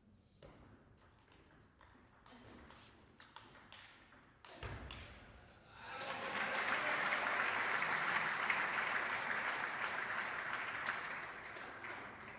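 Table tennis rally: a quick run of sharp clicks as the celluloid ball strikes bats and table, and a low thud about four and a half seconds in as the point ends. Spectators then applaud from about six seconds in, fading toward the end.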